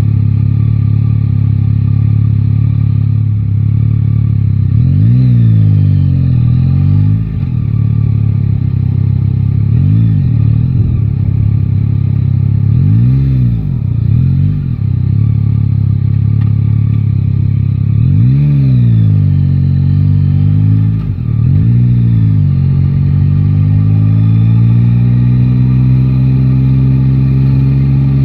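Yamaha Tracer 9 GT motorcycle's three-cylinder engine running under way, its revs rising and falling briefly about five times with the throttle, then climbing slowly and steadily near the end as the bike accelerates.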